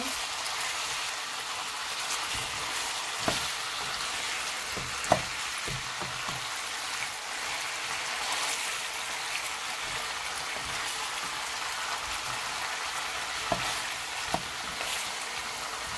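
Chicken pieces frying in their own fat and oil in a nonstick pan: a steady sizzle. A wooden spatula stirs them, knocking sharply against the pan a few times.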